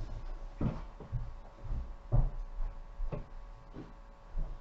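Soft, irregular dull thumps and knocks, about one a second, over a faint steady hum.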